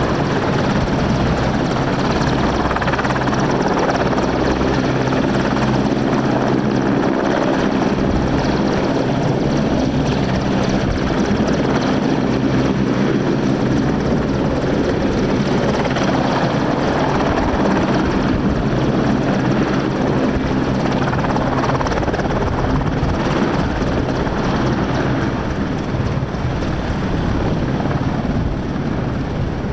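Royal Navy AgustaWestland Merlin helicopter's three turbine engines and rotors running loud and steady as it hovers low and sets down, with a steady low hum under the rotor noise; the sound eases slightly near the end.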